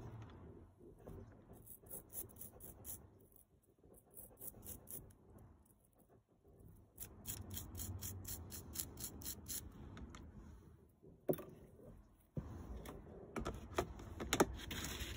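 Wire brush scrubbing a small metal compass part in a tub of soapy cleaning solution, in rapid scratchy strokes about four a second. Near the end, sharp plastic clicks and a clatter as the lid goes onto the plastic tub.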